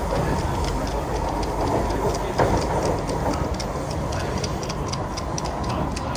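Singapore MRT train running, heard from inside the carriage: a steady rumble with rapid light clicking throughout and a brief louder bump about two and a half seconds in.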